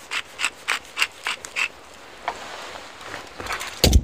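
Wooden pepper mill being twisted over raw spare ribs, grinding in a quick run of clicks about four a second, then fading. A loud thump near the end.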